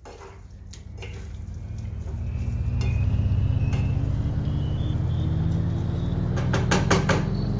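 A spatula clinking and scraping against a metal kadai as chicken in a thick gravy is stirred, with a few sharp clinks and a quick cluster near the end. Underneath runs a low, steady, engine-like drone that grows louder over the first few seconds and slowly rises in pitch.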